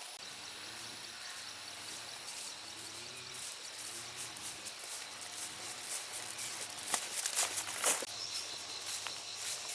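Outdoor ambience with steady high insect tones and scattered rustling crackles, the loudest cluster about seven to eight seconds in.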